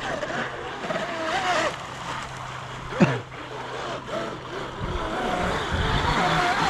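Electric RC jet boat running across the water on a 6S LiPo pack: its motor's whine wavers up and down in pitch with the throttle over a hiss of water. About 3 s in it gives one sharp quick rev, the loudest moment.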